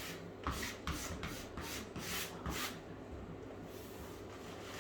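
Pasted wallpaper being smoothed flat against the wall to work a crease out: a quick run of about eight short swishing strokes, then softer rubbing near the end.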